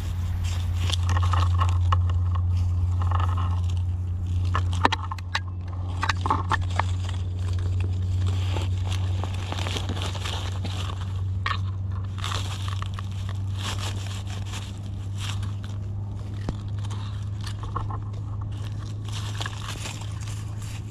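Dry leaf litter and twigs crackling and crunching as a person moves a hand through them on the forest floor, with scraping and rustling, over a steady low hum.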